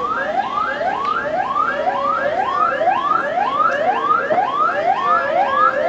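Electronic vehicle siren sounding a fast yelp: quick rising whoops repeating about two and a half times a second, over a steady lower tone.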